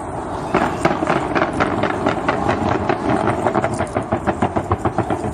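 Fireworks going off in a rapid, even string of bangs, about six a second. The string starts about half a second in and stops shortly before the end.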